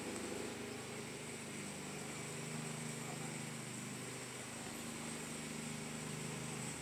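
Steady low mechanical hum, like a motor or engine running, with a faint steady high-pitched whine above it.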